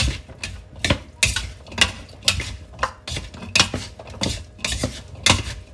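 Wooden spoon and silicone spatula tossing a bean salad in a large ceramic bowl: irregular knocks and scrapes of the utensils against the bowl, about two a second.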